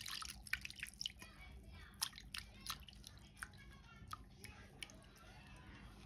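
Faint wet clicks, drips and squishes of a hand patting and pressing in a shallow glass dish of blue kerosene, thickest in the first few seconds and then thinning out.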